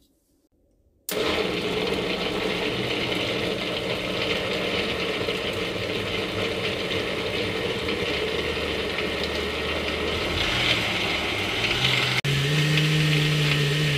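Countertop blender with a glass jar switching on about a second in and running steadily, blending chunks of pineapple and other fruit with liquid into juice. About twelve seconds in it dips for a moment, then runs on with a steadier, higher hum until it stops at the end.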